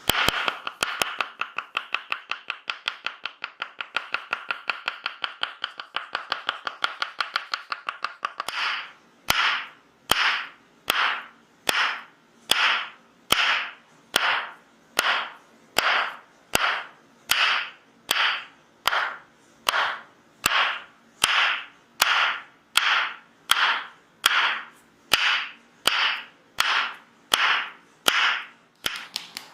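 Tok sen massage tapping with a wooden mallet and wedge: a fast, dense run of taps for about eight seconds, then slower, evenly paced strokes a little over one a second, each with a short hissing tail.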